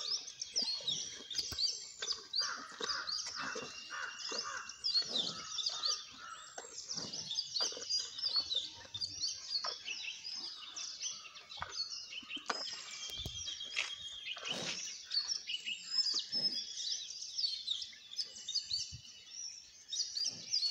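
Many small birds chirping continuously, their short calls overlapping, with irregular soft clicks and rustles underneath.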